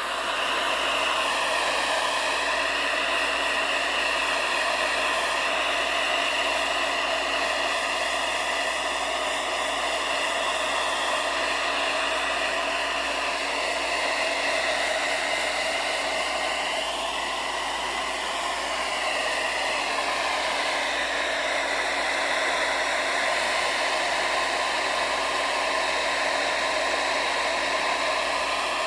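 Hair dryer blowing steadily, its whining tones wavering for a few seconds past the middle.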